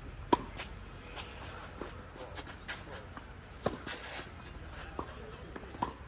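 Tennis ball struck by rackets during a rally on a clay court, with a sharp hit about a third of a second in and further hits and bounces later, amid shoes scuffing and sliding on the clay.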